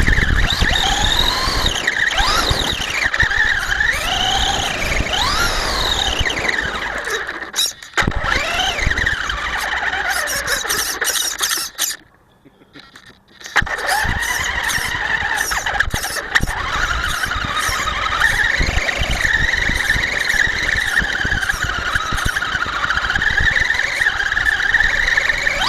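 Electric RC monster truck's motor and gears whining, the pitch rising and falling with the throttle and almost stopping briefly about halfway through.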